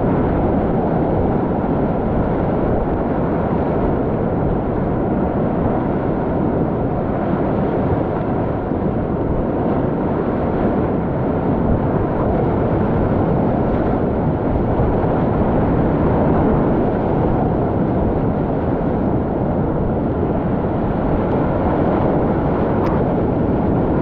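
Loud, steady roar of whitewater rapids at high water, about 1500 to 2000 cfs of brown floodwater, heard from a kayak in the middle of the current; a deep, even rush with no breaks.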